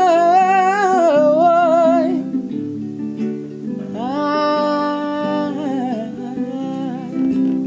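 Acoustic guitar accompaniment under a singer holding long wordless notes with vibrato. One note wavers, drops and ends about two seconds in, and another is held from about four to six seconds.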